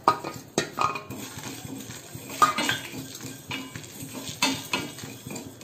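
Whole spices (black peppercorns, coriander seeds, fennel, cumin and dried red chillies) dropped into a dry stainless steel pan and stirred with a wooden spoon as they dry-roast: irregular knocks of the spoon on the steel over the scrape and rattle of the seeds.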